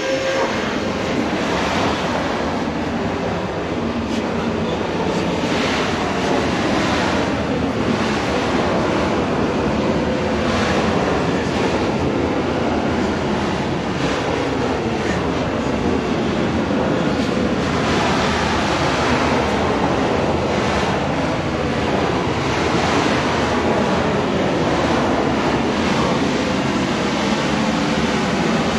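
A vehicle driving through a long rock-cut tunnel: a steady, loud rushing of road and wind noise, crossed by repeated downward-sweeping swishes.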